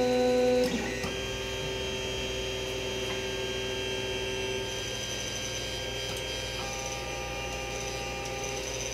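Creality CR-10S 3D printer's stepper motors whining in several steady tones while it auto-homes, the pitch changing as each move starts and stops every few seconds.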